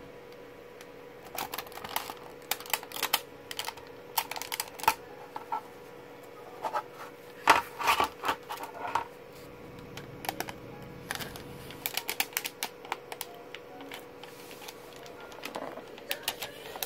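Plastic snap-fit clips of an LCD monitor's casing clicking and snapping as the front bezel is pried away from the back housing by hand: irregular sharp clicks, the loudest about halfway through.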